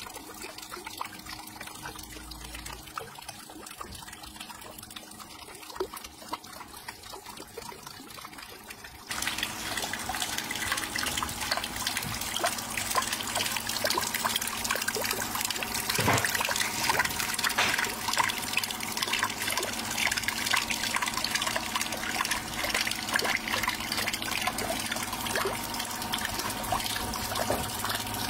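Water from a hose spraying and splashing onto a spinning bottle-cap water wheel in a plastic tub of water, a steady splashing and trickling. The splashing gets suddenly louder about nine seconds in.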